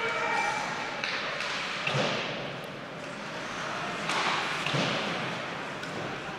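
Ice hockey play: skate blades scraping the ice, sticks and puck clacking, and a couple of thuds against the boards.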